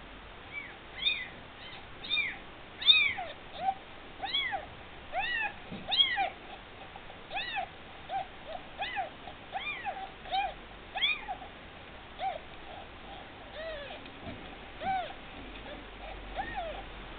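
Newborn kitten mewing over and over in short, high, hungry cries, one or two a second, each rising then falling in pitch. The cries are loudest about three seconds in and grow fainter toward the end.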